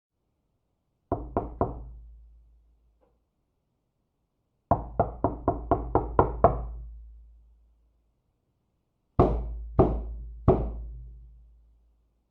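Heavy knocking on a door in three bouts: three quick knocks about a second in, a fast run of about eight knocks in the middle, then three slower, spaced knocks near the end. Each bout leaves a low ring that dies away.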